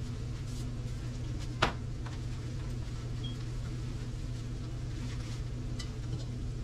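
Cookware at a stove: one sharp clack of a pot or utensil a little under two seconds in, then a few faint clinks, over a steady low hum.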